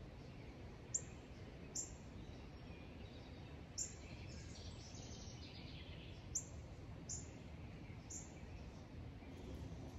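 Outdoor background noise with a small bird's short, high chirps, about seven of them at irregular intervals, and a softer twittering near the middle.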